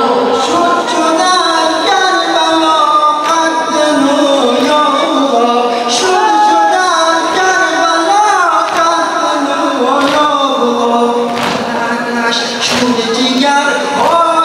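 A group of men singing a nawha, a Shia mourning lament for Muharram: a lead voice at the microphone with the other men singing along.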